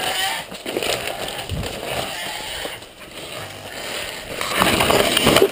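Footsteps and brushing through palmetto fronds and dry leaf litter, a rough crackling rustle that gets louder about four and a half seconds in.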